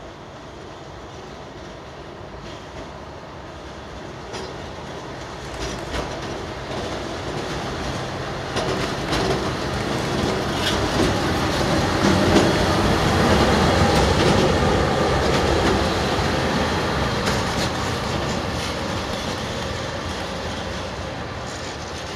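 Plasser & Theurer 08-16/4x4C100-RT track tamping machine running past under its own power, its engine and wheels growing louder to a peak about halfway through and then fading as it moves away. Sharp wheel clicks over the rail joints come through as it goes by.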